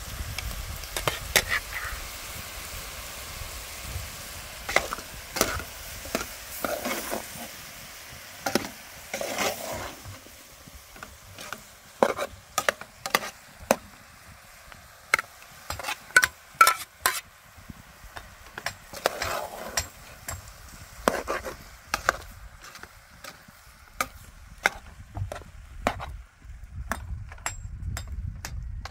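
A utensil stirring and scraping food in a cooking pan, with irregular sharp clicks and knocks over a faint hiss that fades in the second half.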